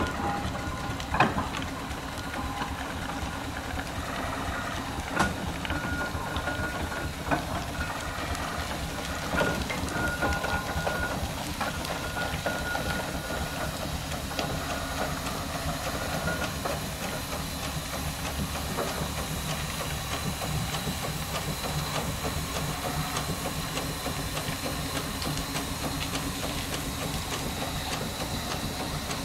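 Fowler steam roller's steam engine running, a steady hiss and mechanical clatter. A few sharp knocks come in the first ten seconds.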